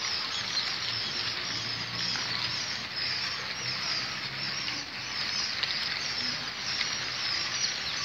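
Hundreds of newly hatched quail chicks peeping together in a hatcher tray: a dense, continuous chorus of high chirps.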